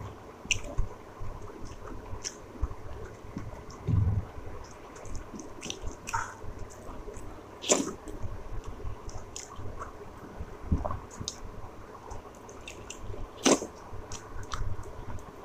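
A person eating rice and curry quickly: wet chewing and squishing mouth sounds with scattered sharp smacks and clicks.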